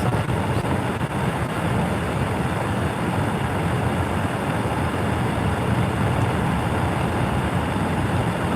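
Steady low road and engine rumble of a moving vehicle, heard from inside.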